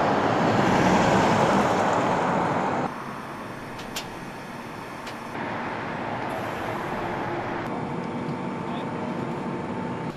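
Road traffic noise as a car passes, loud for the first three seconds. After a cut it gives way to a quieter steady machine hum, with a single click about four seconds in.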